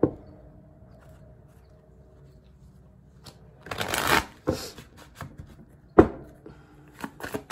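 Tarot cards being shuffled by hand: after a quiet start, a burst of riffling cards about four seconds in, then a few short card taps and snaps, the sharpest one about six seconds in.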